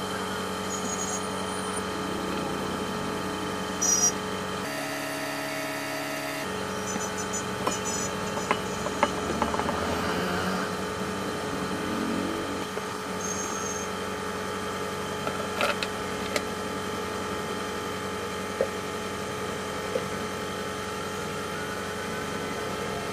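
Steady mechanical hum of an OCA vacuum laminator's pump running, with a few scattered clicks and knocks from handling.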